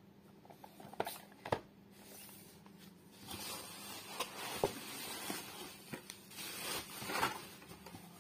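Two light knocks about a second in, then crinkling and rustling of black bubble-wrap packing with small clicks, as gloved hands rummage inside a cardboard shipping box from about three seconds in.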